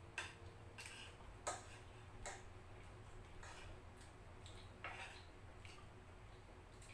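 Eating sounds: spoons and forks tapping and scraping on bowls and plates in light, irregular clicks, about one or two a second, over a steady low hum.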